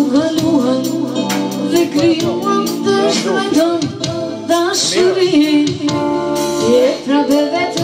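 A woman singing into a microphone, amplified through a PA, over a live band's accompaniment with a steady beat; her held notes waver with vibrato.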